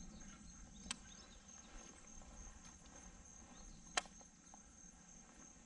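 Faint, steady high-pitched insect trill pulsing evenly, with two sharp clicks, one about a second in and one about four seconds in.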